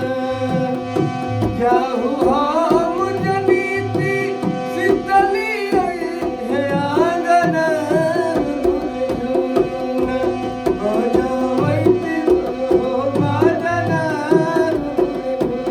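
Instrumental interlude of a Bhojpuri devotional folk song: hand drums keep a steady beat under a held drone and a winding, ornamented melody line.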